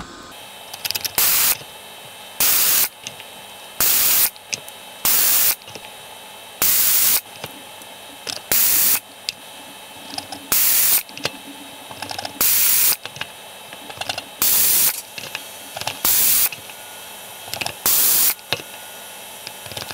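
Vacuum desoldering gun's pump sucking molten solder off the legs of the shorted power MOSFETs, pin after pin. About eleven short rushes of air, each about half a second long and one every second or two, with faint clicks in between.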